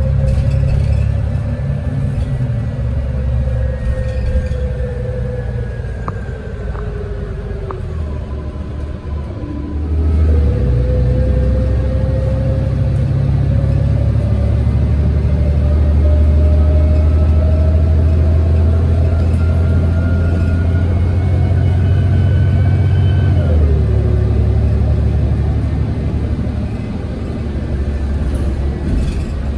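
City transit bus under way, its engine rumbling low. For the first several seconds the engine and transmission whine fall in pitch as it slows. About ten seconds in they rise as it pulls away, then drop at a gear change late on.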